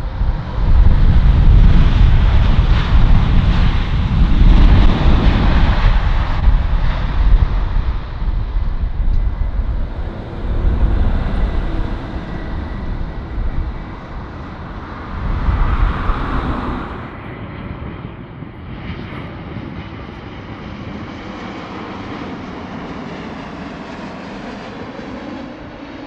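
Boeing 787-8 Dreamliner's jet engines rumbling loudly through its landing roll after touchdown, easing off after about eight seconds with one more swell, then a quieter steady jet engine sound from a Boeing 787-9 on final approach.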